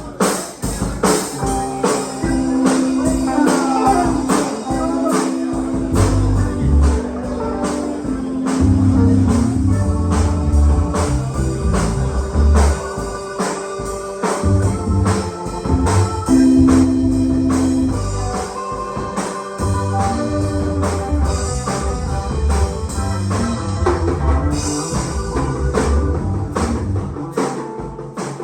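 Live band playing an instrumental passage during a sound check: drum kit keeping a steady beat under a low bass line and held organ-like keyboard chords.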